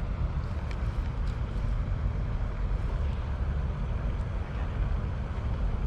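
Wind buffeting the microphone: a steady, uneven low rumble with faint hiss over it and a few faint ticks.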